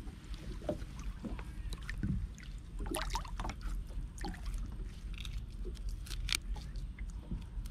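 Water sloshing and splashing with scattered clicks and knocks as a fishing net is hauled in by hand, over a steady low rumble.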